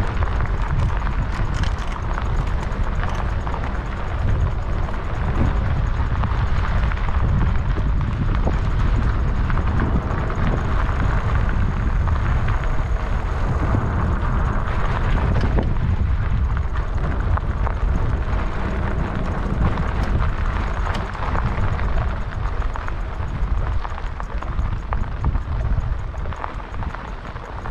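Wind rumbling on the microphone over the steady noise of bike tyres rolling on a dirt road, with scattered small knocks.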